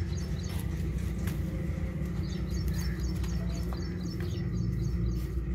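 A small bird chirping in quick repeated runs of high notes, about four or five a second, at the start and again from about two seconds in, over a steady low hum.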